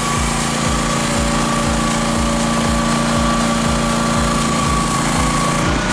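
Small engine of an AGT Industrial QH12 mini excavator running steadily, with a steady high hum over it and a regular low pulse underneath.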